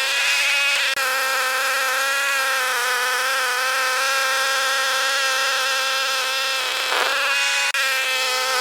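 Ariens 24 Deluxe two-stage snow blower's 9 horsepower engine running steadily at a constant high buzz while clearing snow.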